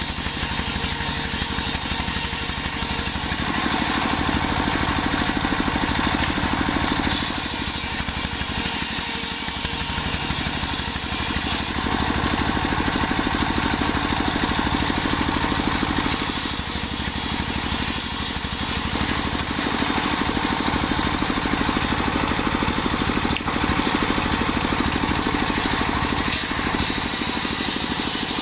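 Belt-driven circular saw bench powered by a stationary single-cylinder diesel engine running steadily, while the big blade rips long jackfruit-wood planks. The cutting adds a high hiss in long passes of several seconds each, about four times, with short gaps where the blade spins free.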